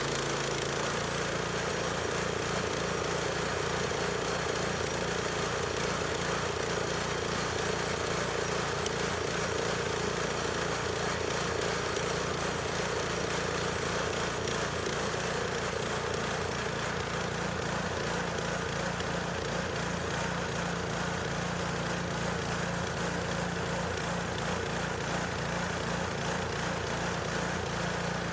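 Small gas engine of a portable bandsaw sawmill running steadily at a constant speed, with no breaks or changes.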